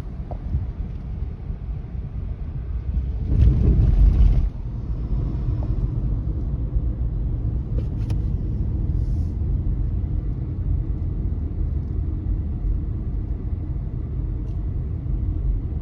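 Steady low road rumble of a car driving, with a louder rush of noise lasting about a second, a little over three seconds in.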